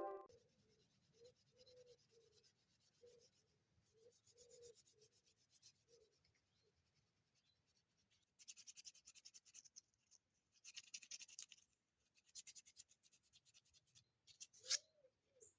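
Faint scratching in short bouts of rapid strokes, with a sharp click near the end and a few soft short chirp-like tones throughout.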